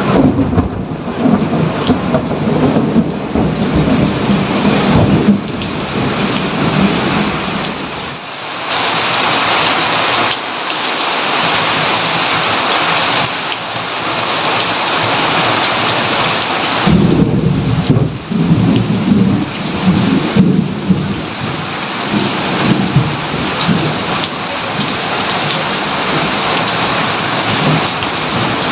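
Steady heavy rain with thunder rumbling over it: a long roll at the start and another well past the middle.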